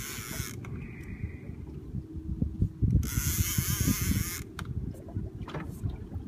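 Heavy-duty sturgeon fishing reel buzzing in two bursts, one just ending at the start and one of about a second and a half about three seconds in, as line works against a large hooked sturgeon. A steady low rumble runs underneath.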